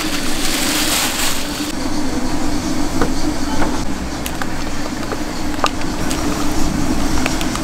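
A steady mechanical hum under a broad hiss; the hiss drops away about a second and a half in, and a few light sharp clicks follow.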